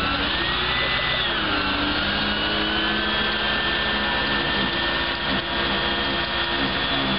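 Flatbed tow truck's engine and hydraulic pump running, a steady mechanical whine that dips in pitch about a second in.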